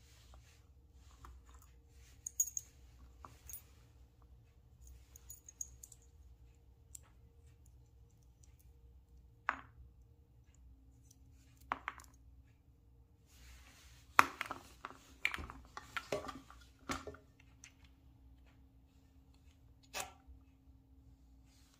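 Small steel collet sleeves and a carbide burr being handled, set down on a bench and fitted into a router collet: scattered light metallic clicks and clinks, with a few sharper knocks in the second half. A faint steady hum runs underneath.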